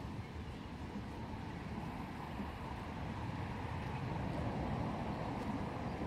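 Steady low rumble of outdoor background noise, growing slightly louder in the second half.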